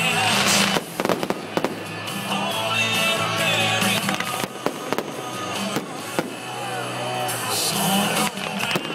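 A fireworks display: repeated bangs and crackling bursts, with a hissing spray of sparks about a second in and again near the end. Music plays underneath.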